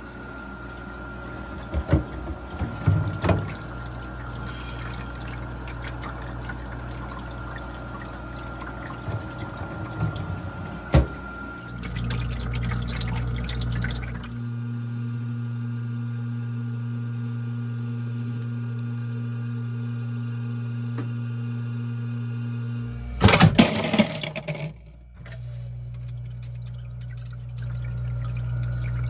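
Euhomy commercial ice maker running: its pump circulates water that pours and trickles down over the evaporator's ice-cube grid, over the machine's steady low hum. A few sharp knocks come early on, and a short, louder clatter comes about three quarters of the way through.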